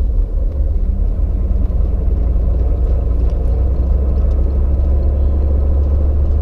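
Steady low rumble of a vehicle's engine and tyres while driving on a dirt road, heard from inside the cab.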